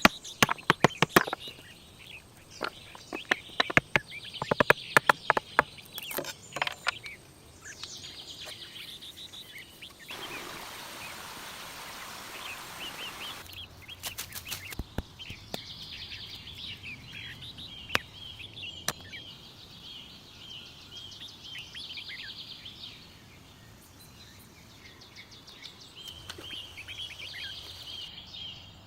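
Small birds chirping in short repeated calls. A rapid run of sharp clicks and knocks comes in the first several seconds, and a few seconds of rustling noise in the middle.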